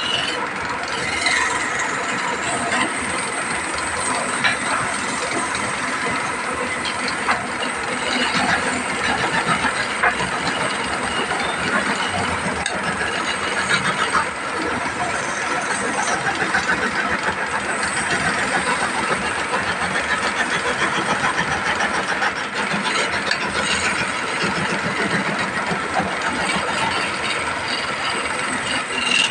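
Machinery running with a continuous, dense clatter of rapid clicks over a steady noise.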